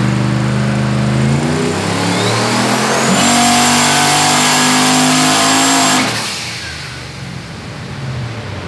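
Turbocharged Trailblazer SS V8 under hard throttle, with the single 80 mm turbo's whine rising and then holding steady over the engine. About six seconds in the throttle closes: the whine cuts off and the engine drops back, quieter.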